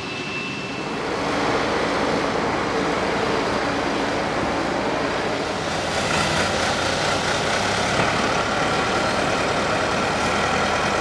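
Krone Big X 700 forage harvester's V8 diesel running steadily under load while chopping maize. About six seconds in, tractor diesel engines working on the silage pit take over, with a steady whine above the engine noise.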